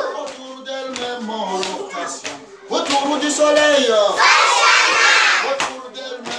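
A group of young children's voices chanting and shouting together, louder from about three seconds in, with a few sharp hand claps.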